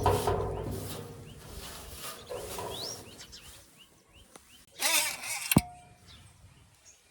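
Birds chirping in short rising calls, with one loud, short, rough call or cry about five seconds in.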